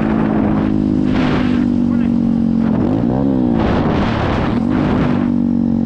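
A 125cc pit bike engine with a Nibbi carburettor running at riding speed, with wind rushing over the microphone. About three seconds in, the engine note drops and then climbs back up.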